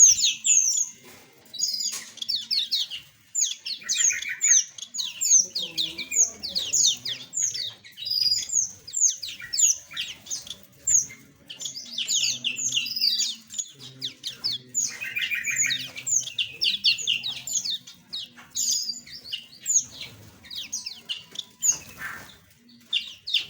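A flock of small aviary birds chirping and twittering, many short quick calls overlapping almost without a break.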